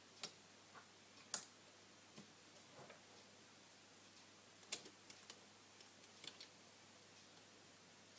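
Small, irregular clicks and taps of tools against a smartphone's plastic and glass parts during disassembly, over near silence; the two loudest clicks come about a second in and just past the middle.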